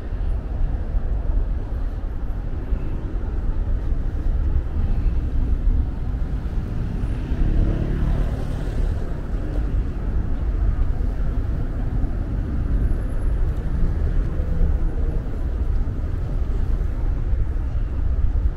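Steady traffic on a busy city road: engines and tyres making a continuous low rumble. A louder vehicle passes about halfway through.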